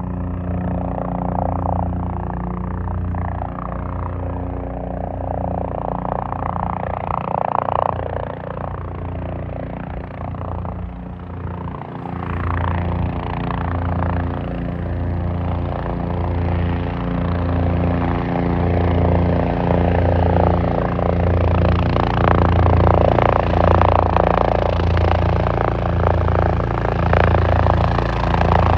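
Helicopter running overhead, its rotor and engine sound growing steadily louder as it comes in closer.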